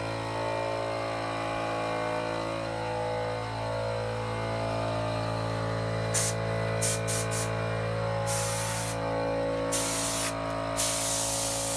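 Pneumatic paint spray gun hissing in bursts, starting about six seconds in: a few short squirts, then longer passes near the end, over a steady hum.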